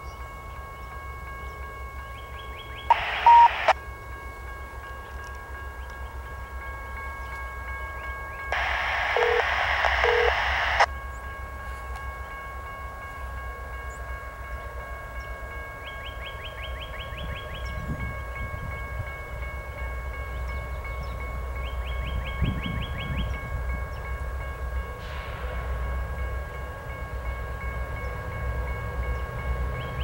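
Low rumble of an approaching passenger train led by two GE P42DC diesel locomotives, growing louder through the second half. Two loud bursts of radio scanner static cut in briefly, about three and about nine seconds in.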